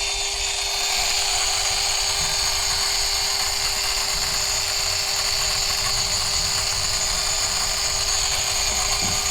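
Angle grinder running free with no load, not cutting anything: a steady, unchanging motor tone with high whine.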